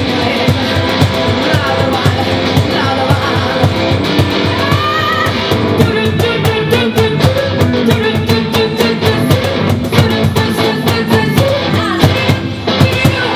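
Live acoustic band music: a woman singing into a microphone over a strummed guitar, with a cajón slapped by hand keeping a steady beat.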